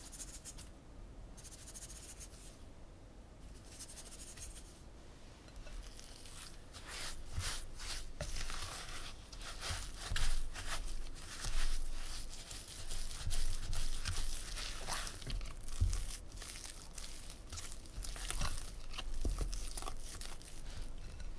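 Granulated sugar poured from a spoon onto mashed sweet potato paste in a glass bowl, in three short hissing pours. From about six seconds in, a spatula mixes the sugar into the thick paste, a quick run of gritty scrapes against the glass bowl that is louder than the pours.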